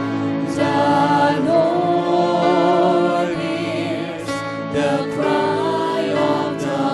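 Christian worship song: voices singing held notes with vibrato over a steady instrumental accompaniment.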